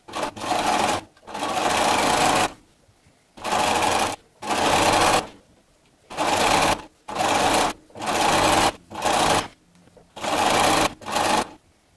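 Bernina sewing machine top stitching around a knit t-shirt neckband, running in short bursts of about a second and stopping between them, about ten runs in all.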